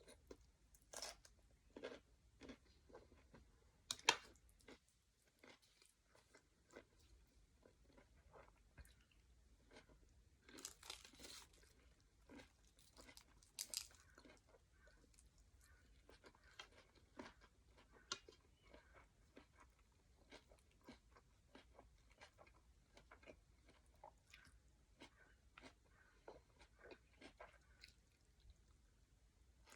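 Faint close-up chewing and crunching of a mouthful of vermicelli noodle papaya salad, with irregular crisp crunches. The louder bites come about four seconds in, around eleven seconds and around fourteen seconds.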